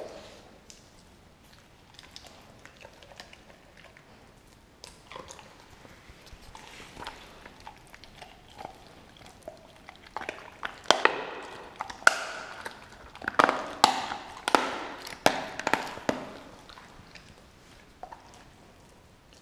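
Doberman gnawing and tearing at a whole raw turkey: faint scattered licking and chewing clicks at first, then a run of loud, sharp crunches and snaps for several seconds about halfway through, dying away again near the end.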